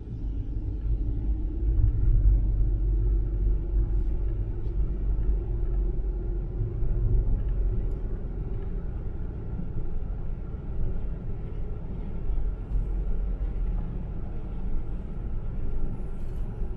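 Steady low rumble of a car driving along at moderate speed: road and engine noise, with a faint steady hum above it.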